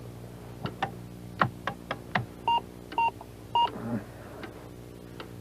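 Irregular clicks of computer keys being pressed, then a computer beeping three times, short even beeps of one pitch about half a second apart.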